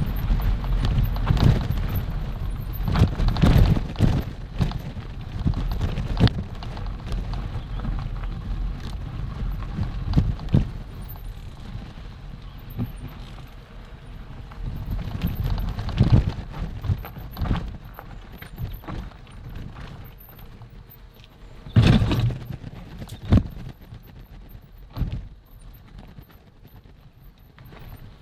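Mountain bike riding over a rough, stony trail: a steady low rumble from the tyres with irregular knocks and rattles as the bike jolts over bumps, the hardest jolts about three-quarters of the way through.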